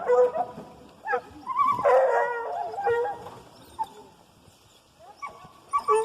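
Hunting hounds baying and howling in a string of drawn-out calls. The calls die down in the middle and pick up again near the end.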